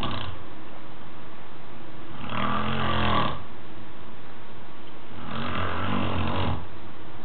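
A man snoring in his sleep: two long, rattling snores about three seconds apart, each lasting about a second, over steady background noise.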